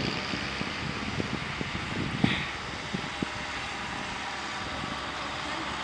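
Steady engine drone of a snow-clearing tractor-loader with wind on the microphone, and a brief high squeak about two seconds in.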